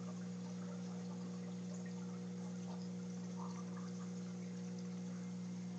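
Aquarium filter running with a steady low electrical hum, water trickling and small drips over it.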